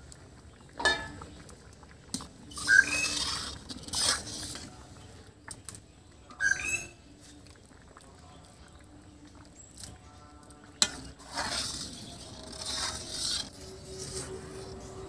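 Metal ladle stirring and scraping a thick, bubbling khichuri in an iron wok, in separate strokes with a few short high squeaks, and one sharp knock of the ladle against the pan about eleven seconds in.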